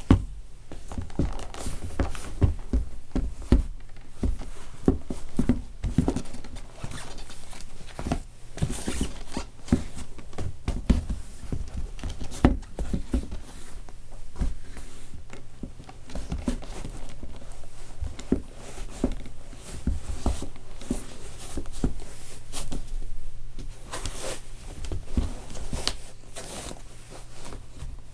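Leather cowboy boots stomping on and grinding over a pair of lug-soled leather lace-up work boots on a wooden floor: irregular heavy thumps and knocks, with leather scuffing and creaking between them.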